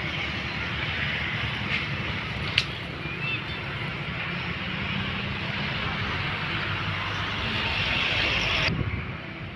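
Steady outdoor rumble and hiss with a sharp click about two and a half seconds in; it cuts off abruptly near the end.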